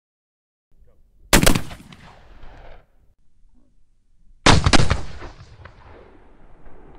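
.451 Parker Hale Whitworth black powder muzzleloading rifle firing: two loud shots about three seconds apart, each trailing off over a second or more.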